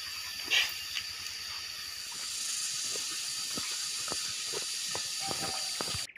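Steady high-pitched hiss of forest background with a thin high whine, under scattered light snaps and crunches of footsteps on a leafy dirt trail. There is a brief rustle about half a second in.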